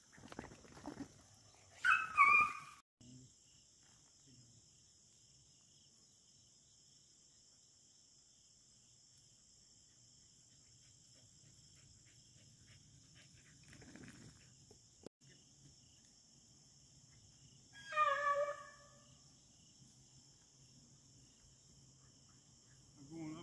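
Beagle baying in two short bouts of bark-like calls, one about two seconds in and another about five seconds before the end, with quiet in between. It is a hound giving voice while trailing at a field trial.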